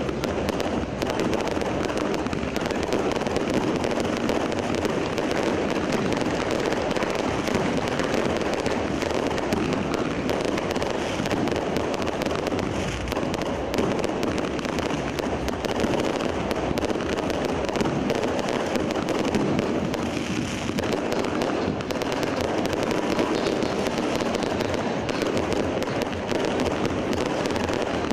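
Fireworks display: a dense, unbroken barrage of bangs and crackling, steady in loudness.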